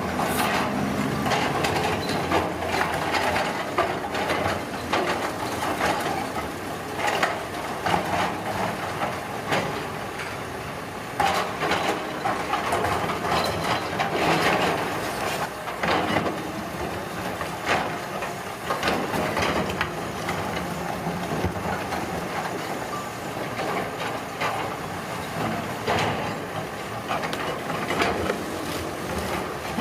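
Heavy road-construction machinery running, a steady engine drone with frequent irregular knocks and bangs throughout.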